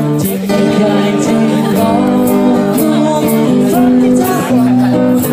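Live music: a guitar played along with a singing voice over a steady, light percussion beat.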